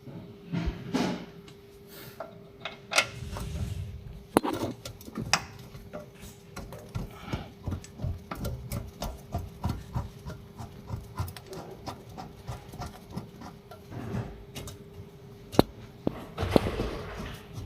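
Hand tools and metal parts clicking, tapping and knocking in irregular succession, with a few short scrapes and a steady faint hum underneath.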